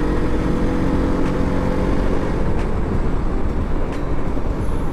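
Heavy wind blast on the microphone of a sport motorcycle riding at highway speed, with the bike's engine running beneath it. The engine's steady note fades into the wind noise about two seconds in.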